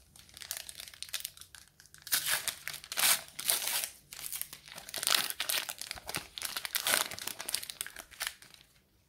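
Panini Super Mario trading-card booster pack's foil wrapper crinkling in the hands and being torn open, in irregular rustling bursts, loudest a couple of seconds in and again around five and seven seconds in. It dies away shortly before the end.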